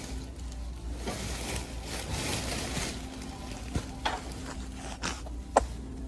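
Plastic wrapping on a bundle of insulation being ripped and handled: a rustling, crinkling tear for about two seconds, then a few sharp taps and knocks, the loudest near the end.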